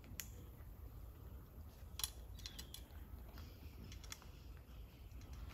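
Faint, scattered clicks and small knocks of tree-saddle climbing gear being handled against the tree, the sharpest about two seconds in and a quick cluster just after it, over a low steady rumble.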